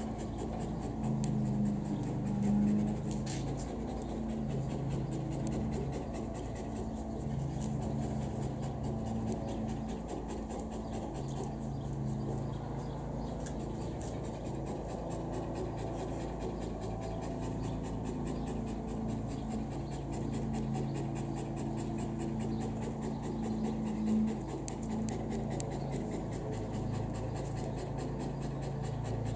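Dogs play-fighting: low, drawn-out growls lasting a few seconds at a time, with panting.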